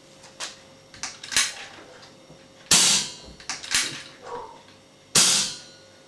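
Two shots from a .177 Webley & Scott FX 2000 pre-charged air rifle fitted with a VENOM moderator, each a sharp crack with a short tail, about two and a half seconds apart. Lighter clicks come before and between the shots.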